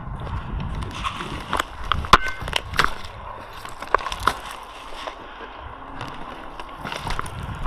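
Footsteps crunching over twigs and debris, with irregular sharp clicks and snaps, busiest in the first half and again near the end.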